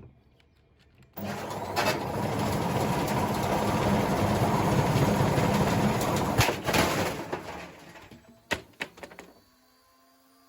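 Washing machine running with a heavy ballast weight loose in its drum: a loud, dense clattering rattle starts abruptly about a second in and dies away around seven seconds, followed by a few sharp knocks. The weight unbalances the drum so that it bangs and rattles.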